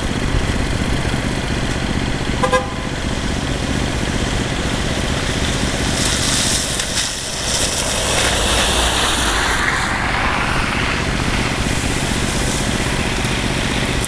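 Cars and an SUV driving past on a wet, slushy plowed road, the tyre hiss on slush swelling as a large SUV passes close about eight seconds in, over a steady low rumble. A brief pitched tone sounds about two and a half seconds in.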